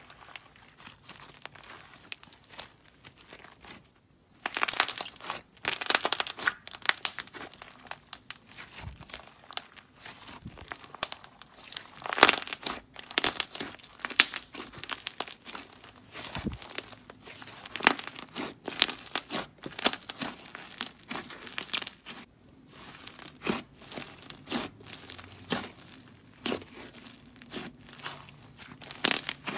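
Hands stretching, squeezing and pinching thick clay slime, giving dense crackling and tearing sounds. It is quieter for the first few seconds, breaks off briefly about four seconds in, then crackles louder.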